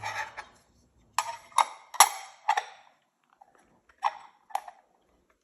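Sharp clicks and taps as a part is fitted onto the wall clock's quartz movement: four quick clicks, then two fainter ones about two seconds later.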